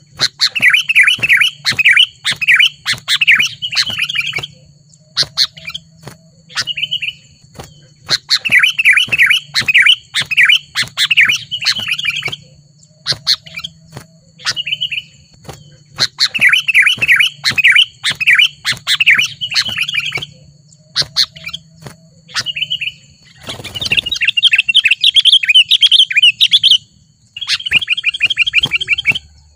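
Sooty-headed bulbuls (kutilang) calling: bursts of quick, bubbly chirping phrases a few seconds long, repeated with short pauses. Near the end comes a dense stretch of chattering, then a fast, even run of notes.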